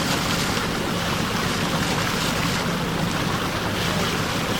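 Tour boat under way: its engine runs steadily beneath the rush of water along the hull, with wind buffeting the microphone.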